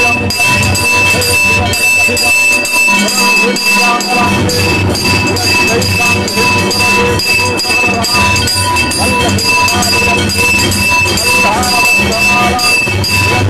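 Temple worship din: metal bells ringing continuously over rapid, dense percussion strokes of drums and cymbals, a loud steady clangor.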